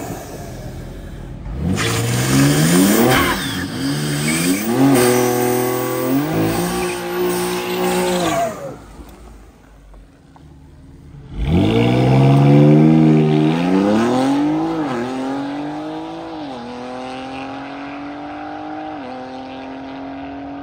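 Drag race cars launching and accelerating hard down the strip, the engine pitch climbing and then dropping at each upshift. A second pass starts about eleven seconds in, shifting up several times and slowly fading as it pulls away.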